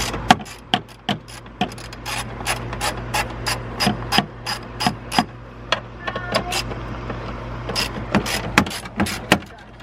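Socket ratchet clicking in short runs with a 10 mm socket, loosening the bolts that hold a diesel truck's coolant degas bottle.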